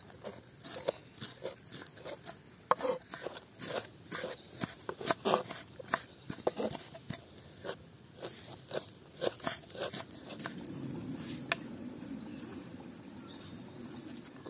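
Kitchen knives chopping a pile of fresh herbs on wooden cutting boards: quick, irregular knocks of the blade through the leaves onto the board. The knocks stop about ten seconds in, leaving a softer steady low noise.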